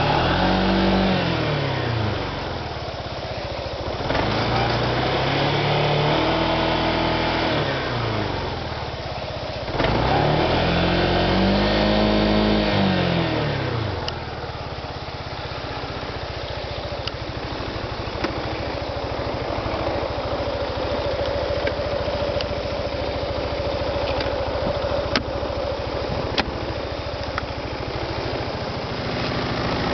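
Yamaha Majesty 250 Fi scooter's single-cylinder four-stroke engine revved three times, each rev rising and falling over a few seconds, then settling to a steady idle about halfway through.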